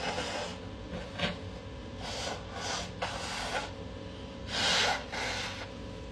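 A person sniffling and breathing hard through the nose during an allergy sneezing fit: a series of short noisy sniffs, the longest and loudest about five seconds in.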